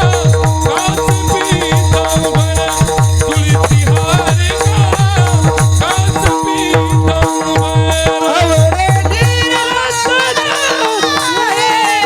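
Devotional kirtan music: a hand drum beating fast, low strokes under sustained held notes and jingling percussion, with a wavering singing line over them. The drum stops about nine and a half seconds in, leaving the held notes and the singing.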